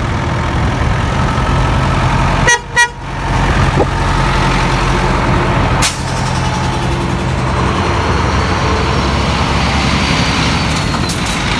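Small car driving, its engine and road noise a steady low hum heard from inside the cabin, with two short horn toots about two and a half seconds in.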